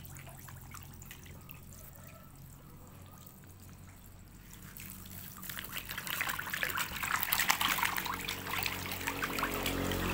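Catfish feeding at the surface of a pond: faint trickling water at first, then about five seconds in a dense crackle of small splashes builds up as the fish thrash and gulp at floating feed pellets.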